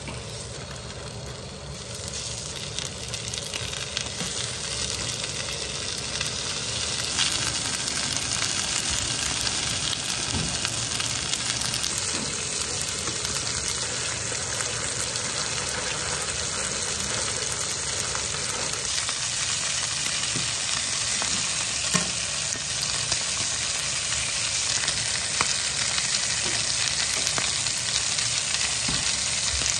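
Lamb chops searing in a hot frying pan: a steady sizzle that grows louder over the first couple of seconds as more chops go into the pan, with a few light clicks through it.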